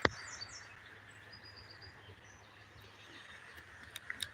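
Faint outdoor ambience with a few short, high bird chirps in the first couple of seconds. A sharp click comes right at the start and a couple of small clicks near the end.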